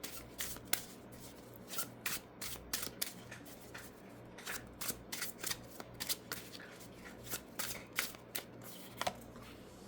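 Tarot cards being shuffled by hand: a run of short, irregular papery flicks and taps, a few each second.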